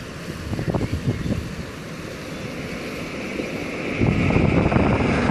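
Wind buffeting the microphone in uneven gusts, turning into a louder, steadier rushing about four seconds in.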